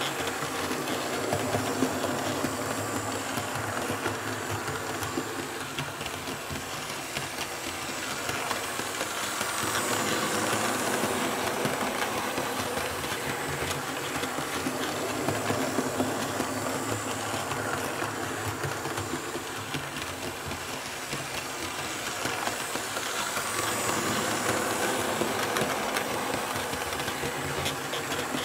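H0 Märklin E41 model electric locomotive and coaches running round an oval of Märklin K-Track laid on sound-insulating sheet and cork: a steady rumble of motor and wheels on the rails with a light hiss. It swells twice as the train comes round the near side of the oval.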